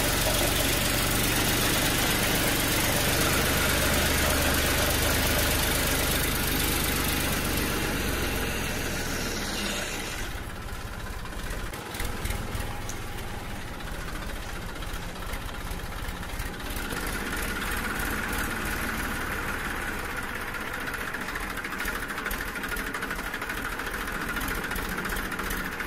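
A motor running steadily, engine-like. About ten seconds in the sound drops a little and changes, and later a higher steady whine and fast ticking join it.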